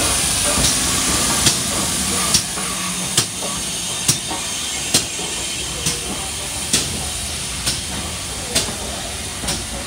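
Steam train at a station: a steady hiss of steam under regular sharp clicks, a little under one a second, from the wheels running over the rails.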